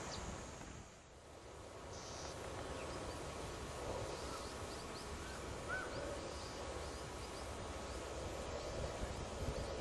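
Steady outdoor background noise with a few faint, short bird chirps in the middle; the noise dips briefly about a second in.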